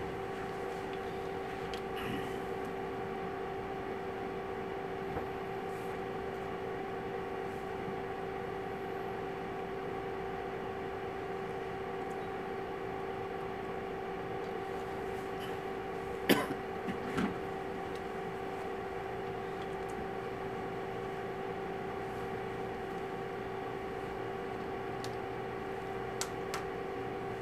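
Steady electrical hum in a classroom, several even tones held unchanged. About 16 seconds in there is a single sharp click, followed within a second by a short, louder sound.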